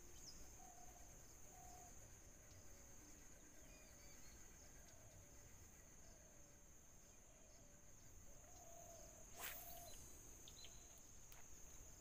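Near silence with faint outdoor ambience: a steady high insect drone and a few short, soft bird calls. One sharp click comes about nine and a half seconds in.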